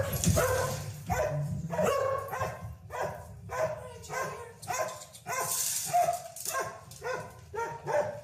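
Dog barking over and over in quick succession, about two barks a second.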